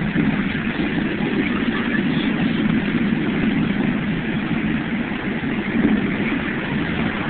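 The Mirage volcano erupting: a steady, unbroken roar of rushing water jets over a low rumble, with no distinct bursts.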